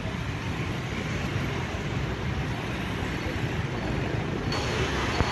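Dense city street traffic, mostly motorbikes and scooters with an occasional car, making a steady engine-and-tyre din with a low rumble.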